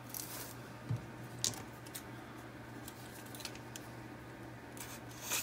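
Faint handling of a shrink-wrapped paper manual: soft plastic rustles with a couple of light clicks about one and one and a half seconds in.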